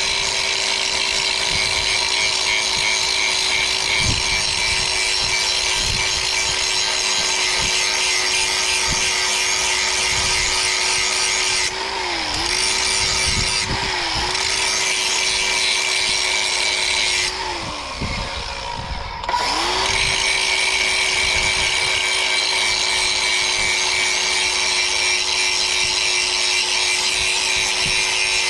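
Angle grinder touching up the cutting edge of a steel lawn mower blade: the motor runs at a steady pitch under a hissing grind of the disc on the steel. The grinding breaks off briefly twice around the middle, and about two-thirds through the motor slows and spins back up before grinding resumes.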